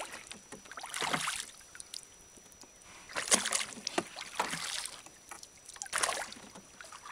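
Wooden rowboat being rowed: three oar strokes, each a splash of water, about two and a half seconds apart, with small knocks between them.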